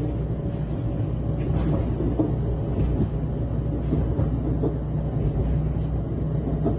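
Regional train running between stations, heard from inside: a steady rumble of wheels on track under a constant low drone, with a few faint knocks.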